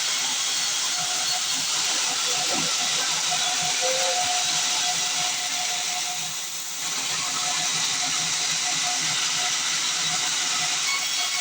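Sawmill band saw cutting through a log: a steady hissing noise with a faint hum underneath, easing off briefly about six seconds in before picking up again.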